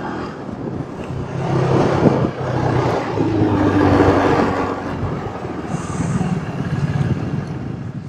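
Motorcycle engine running steadily under way, mixed with wind rushing over the rider's microphone.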